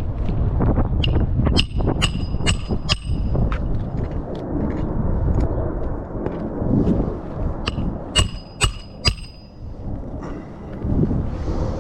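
Hammer driving roofing nails into shingles: about five ringing metal strikes roughly half a second apart, a pause, then four more, over a steady low wind rumble on the microphone.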